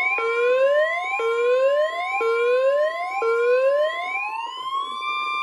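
NOAA Weather Radio warning alarm tone, a steady high tone near 1,050 Hz, with weather alert receivers' sirens whooping over it: rising sweeps about once a second, the last one slower and held near the end.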